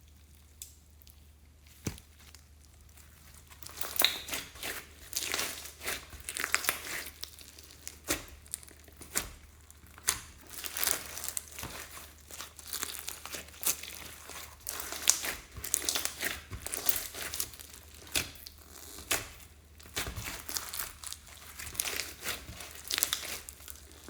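Slime with floam beads mixed in being squeezed and pressed by hand, making irregular crackling, clicking and squishing sounds. It is quiet for the first few seconds, then the crackles come thick and fast.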